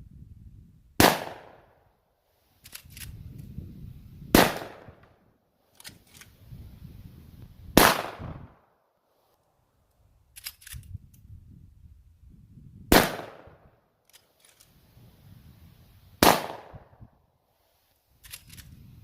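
Lever-action guns in .45 Colt fired five times, about three seconds apart with a longer pause after the third shot, each shot ringing out after it. Before each shot come quick metallic clicks of a lever being spun to cycle the action.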